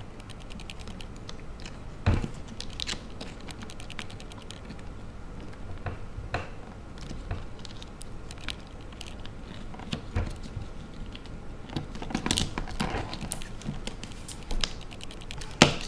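Small clicks and taps of plastic and metal parts being handled while a replacement lower dock is fitted into an opened iPhone 3GS, with a sharper knock about two seconds in and a burst of clicks near the end.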